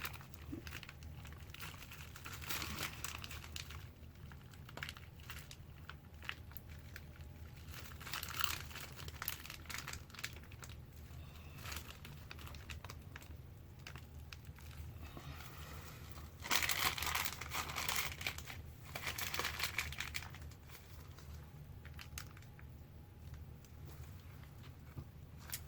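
Plastic piping bag crinkling as it is squeezed and twisted to push out the last of the soap frosting, with a louder stretch of crinkling about two-thirds of the way through.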